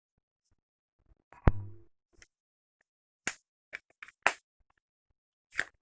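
Plastic phone stand being handled and adjusted: one sharp knock about a second and a half in, followed by a handful of short, sharp clicks.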